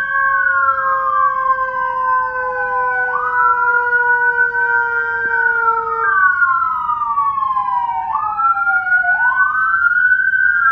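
Whelen Carbide electronic siren on a dual-tone amplifier sounding two wail tones at once, each sweeping slowly up and down out of step with the other. Under them is a lower mechanical-siren tone that slowly sinks in pitch and dies out about six seconds in.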